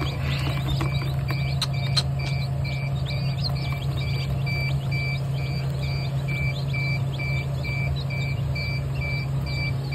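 Newly hatched chicks peeping over the steady hum of an egg incubator's machinery, while an electronic beep repeats about twice a second. A few sharp clicks and rustles in the first two seconds as the chicks are handled.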